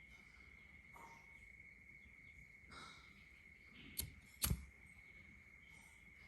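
Two sharp clicks about half a second apart, the second louder, from a Cartier gas lighter being handled.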